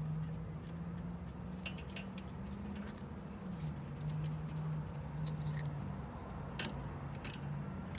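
Light, irregular metal clicks of a hand wrench tightening the 14 mm bolts on a rear brake caliper, over a steady low hum.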